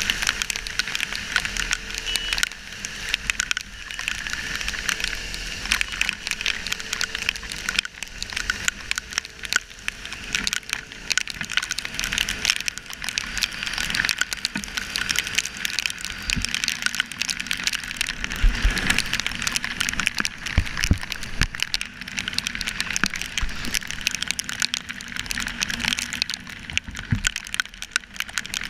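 Heavy rain striking a GoPro Hero3's waterproof housing on a moving motorcycle: a dense crackle of drop impacts over a steady hiss of wind and wet-road spray, with a few low thumps about two-thirds of the way through.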